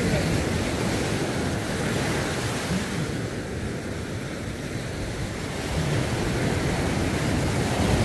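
Ocean surf breaking and washing up the beach in a steady rush, easing a little midway and swelling again about six seconds in.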